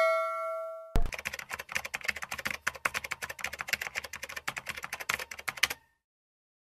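A bell ding rings out and fades over the first second. Then comes a rapid run of keyboard-typing clicks for about five seconds, a typing sound effect that stops shortly before the end.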